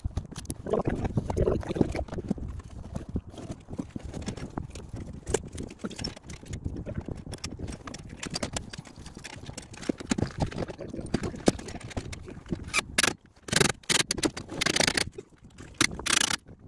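Irregular knocks, bumps and footsteps on a camper roof as solar panels are handled and set in place, with a few louder rustling, scraping stretches near the end.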